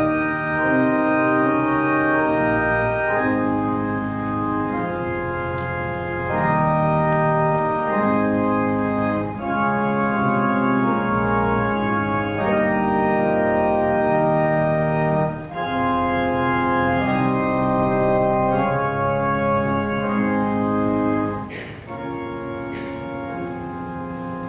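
Church pipe organ playing full, sustained chords that change every second or two. About 21 seconds in it drops to a softer held chord.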